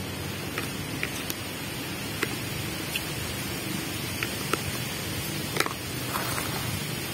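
Steady rushing of a flowing river, with a dozen or so small sharp clicks scattered through it, the loudest a little over halfway.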